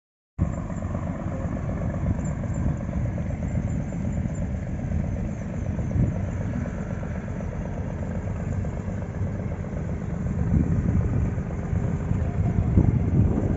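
Houseboat engine running steadily with a low, even rumble, heard from on board.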